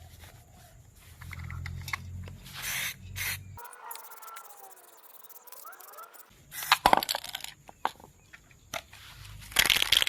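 Short hissing bursts from an aerosol spray paint can, with scattered metallic clicks and knocks between them.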